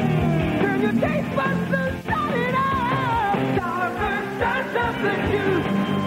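Upbeat rock-and-roll television jingle for Starburst Fruit Chews, a singing voice over a steady beat.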